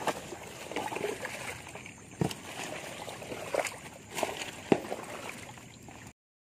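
Small boat being paddled through dense water hyacinth: a steady rustle of leaves and water slosh, with several sharp knocks. The sound stops abruptly near the end.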